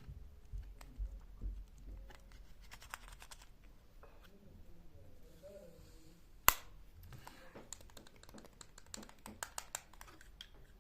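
Light tapping and clicking close to the microphone in irregular runs, as ASMR triggers, with a few soft bumps in the first two seconds and one much sharper click about six and a half seconds in.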